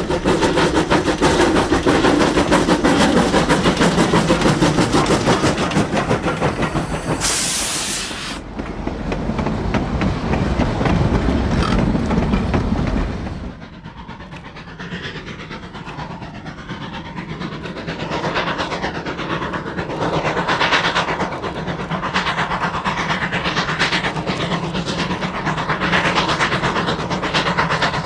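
Narrow-gauge Baldwin C-18 2-8-0 consolidation steam locomotive working a train: a loud, dense run of exhaust and rolling noise, with a short burst of hiss about seven seconds in. About thirteen seconds in the sound drops sharply to a quieter, rhythmic train sound.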